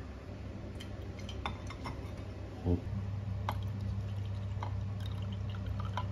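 Liquid jelly mixture poured from a glass measuring jug into ribbed goblets, trickling and dripping with light clinks of glass. A single dull knock about two and a half seconds in is the loudest sound, over a steady low hum.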